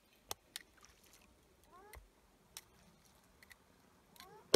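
An animal call, a short note sliding upward in pitch, comes about two seconds in and again near the end, among scattered sharp clicks; one loud click sounds near the end.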